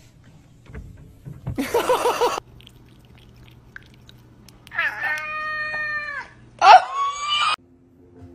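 Domestic cat meowing: a long, steady meow a little before the middle, then a louder call right after that rises in pitch. About two seconds in there is also a short rasping burst.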